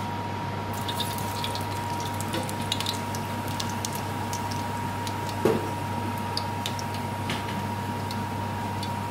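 Fennel seeds crackling and popping in hot vegetable oil in a steel pot, in scattered sharp ticks that start about a second in, over a steady hum. One louder knock comes about halfway through.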